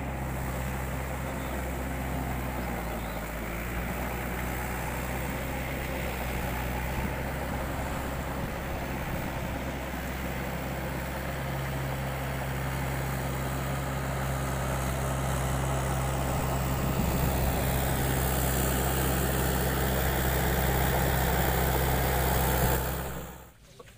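An engine running steadily at an even speed: a low, constant-pitched drone. It grows a little louder in the second half and stops abruptly near the end.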